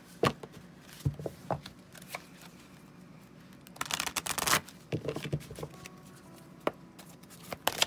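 A deck of oracle cards being shuffled by hand: scattered slaps and clicks of the cards, with a denser run of shuffling about four seconds in.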